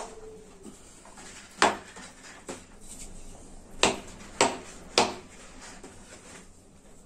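A cleaned old hammer with a wooden handle striking a hard surface: one sharp blow about a second and a half in, then three more roughly half a second apart between about four and five seconds in.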